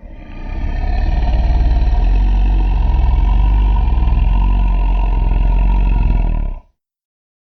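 Tyrannosaurus rex sound effect: a long, deep rumbling growl that swells over the first second, holds steady for several seconds and cuts off abruptly.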